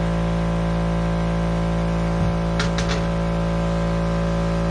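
Air compressor running steadily, feeding the pneumatic framing nailer, with two short clicks about two and a half seconds in.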